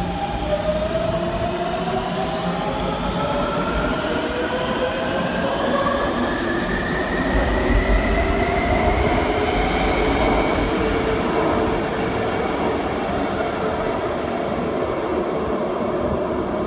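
Taipei Metro C321 train departing from the platform and accelerating away, its motor whine rising steadily in pitch over about ten seconds over the rumble of the cars on the rails.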